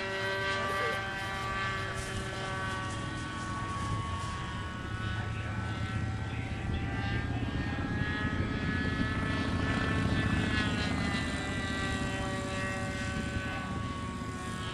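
NGH 9cc single-cylinder two-stroke gasoline engine and 11x7 propeller of a radio-controlled model airplane buzzing steadily in flight overhead. Its pitch dips and climbs again about ten seconds in.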